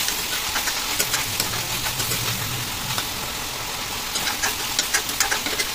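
Chicken and tomatoes sizzling in hot oil in a kadai, with a steady hiss and scattered clicks and scrapes of a steel ladle against the pan as it is stirred.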